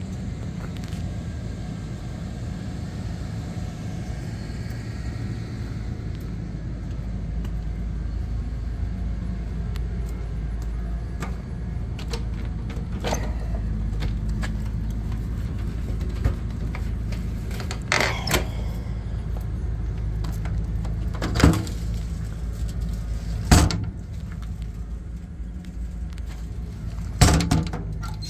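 Steady low mechanical rumble, with a few sharp clicks or knocks in the second half.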